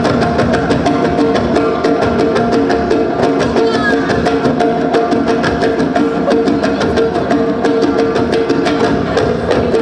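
Music with a fast, steady percussion beat over sustained tones.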